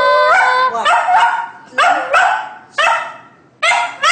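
A dog barking: a drawn-out pitched call at the start, then a run of short barks, roughly one or two a second.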